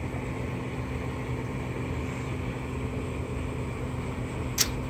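Steady low mechanical hum of ventilation, with one short sharp click near the end.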